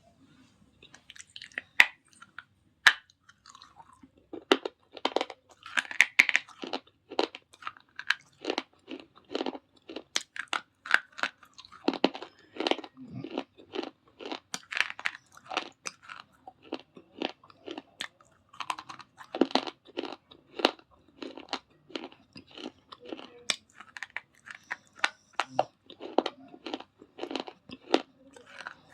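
Close-up biting and chewing of hard baked clay and slate pencil pieces: sharp, gritty crunches, a few scattered at first, then steady crunching several times a second from about four seconds in.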